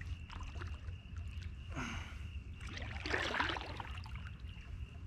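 Kayak paddle strokes in the water: two splashing strokes, about two and three seconds in.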